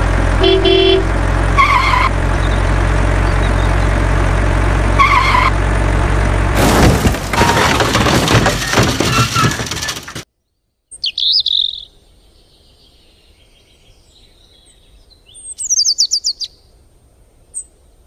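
A heavy truck engine runs with a steady low drone, with a few short chirps over it. About six and a half seconds in, a harsh crashing, crumbling noise takes over as the truck goes over the edge into the ravine, and it cuts off abruptly after about three and a half seconds. Then there is quiet outdoor air with birds chirping, including a run of quick chirps near the end.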